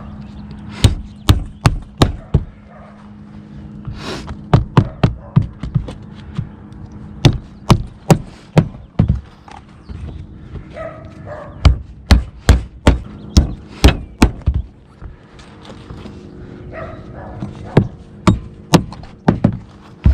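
Hammer driving nails, sharp blows in quick runs of three to five with short pauses between runs.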